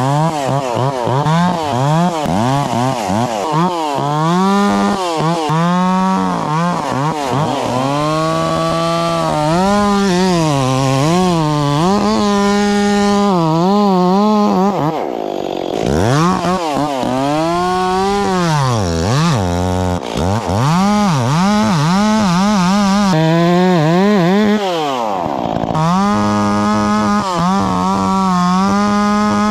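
Stihl 044 two-stroke chainsaw running at high revs and cutting wood. Its pitch dips and recovers again and again, and falls back low a few times.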